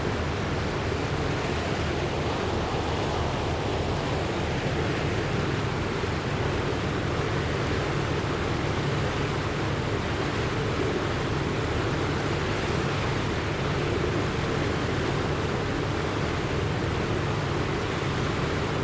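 Steady rushing of surging floodwater with a low rumble underneath, even throughout.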